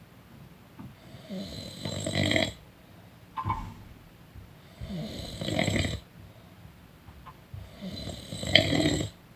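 Person snoring: three snores about three seconds apart, with a short, higher-pitched sound between the first two.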